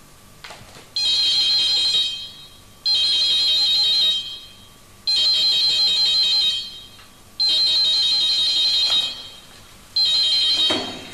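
Black desk telephone ringing: five rings about two seconds apart, each starting sharply and fading away.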